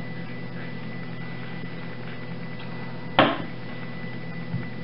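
A soap bar is pushed through a single-wire soap cutter, giving one sharp knock about three seconds in and a softer knock near the end. A steady low hum is underneath.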